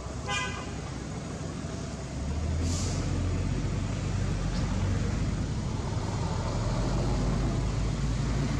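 A motor vehicle's engine running nearby: a steady low rumble that grows louder about two seconds in and holds. There is a brief high pitched squeak just after the start and a short hiss near the three-second mark.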